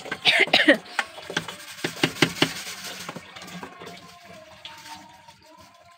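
Water sloshing in a plastic bucket as a metal sieve pan is handled in it, with a brief high-pitched sound near the start and a run of sharp knocks of the pan over the next couple of seconds. It grows quieter in the second half.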